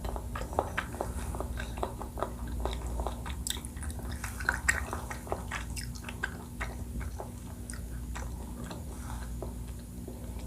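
Close-miked chewing of a Thai coconut-milk dessert: a quick run of small mouth clicks that thins out over the last few seconds.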